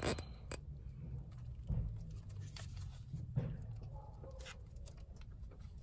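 Faint scattered clicks and rustling of a gloved hand working among rubber hoses in a Honda Civic engine bay, feeling for the vehicle speed sensor's wiring connector. A low steady rumble lies underneath.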